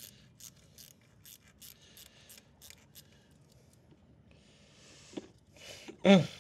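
Faint, quick clicks from hand tools working on the motorcycle, about three a second, dying out after about three seconds. A soft rustle and a single click follow, then a short grunt just before the end.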